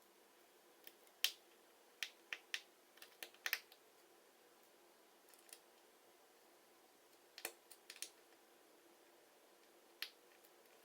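Sharp light clicks and taps of a small screwdriver, tiny screws and a thin metal shield against an iPhone 5's internals as they are removed. The clicks come irregularly in small clusters over a faint steady background hum.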